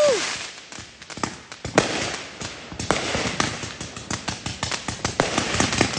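Fireworks going off in quick, irregular succession: a running string of pops and crackles with a few louder bangs among them.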